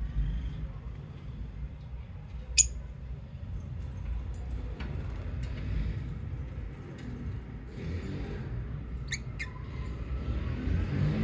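Lovebirds giving brief, high-pitched chirps and squeaks, scattered and sparse, with one loud sharp chirp about two and a half seconds in and a quick pair near the end, over a steady low rumble.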